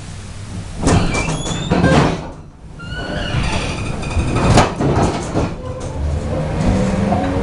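Inside an ER2R electric train car: a run of loud knocks and clatters with short rising squeals, then from about six seconds in a rising whine as the train picks up speed.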